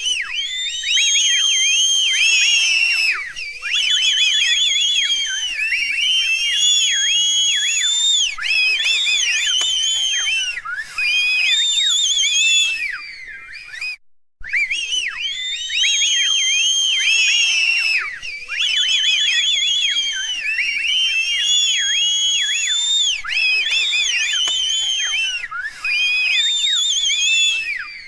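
A crowd whistling: many overlapping shrill whistles swooping up and down and warbling, with a short drop-out about halfway through before the whistling starts again.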